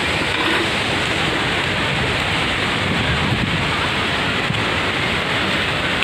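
Steady rushing roar of a waterfall and fast-flowing river water, an even noise with no breaks.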